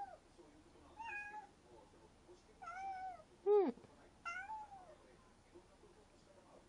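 A cat meowing four times in short calls over the first few seconds, the third the loudest and sliding sharply down in pitch.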